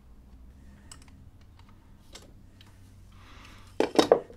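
Sparse light clicks of plastic and wire being handled as old wire connectors on a plug socket's cables are undone. Near the end comes a short cluster of louder clicks and knocks.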